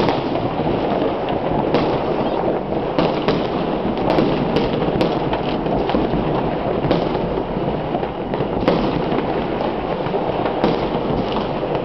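Massed New Year's fireworks and firecrackers going off all around: a dense, continuous din of distant and nearer bangs and crackling, with sharper single reports standing out every second or so.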